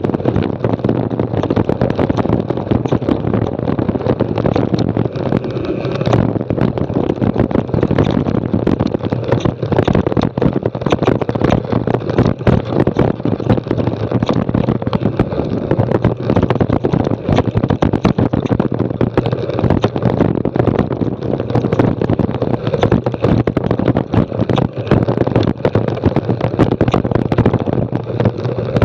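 Mountain bike descending rocky, loose-stone singletrack: a steady rush of tyre and wind noise, thick with rapid sharp knocks and rattles as the wheels run over stones.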